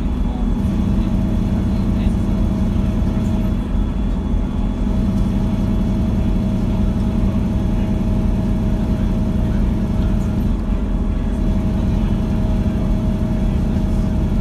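Scania K93CRB coach's rear-mounted 9-litre six-cylinder diesel running steadily, heard from inside the passenger cabin as an even drone with a faint higher whine over it.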